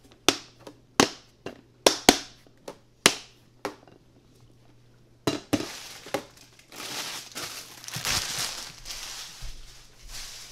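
Snap-lock lid of a plastic food storage box being pressed on and its latches clicked shut: a run of sharp plastic clicks and knocks, about eight in the first four seconds. A few seconds of rustling and scuffing follow.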